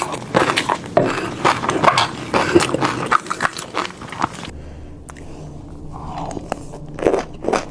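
Fish roe popping and crackling as it is chewed close to the microphone, a dense run of small pops that pauses about four and a half seconds in and picks up again near the end.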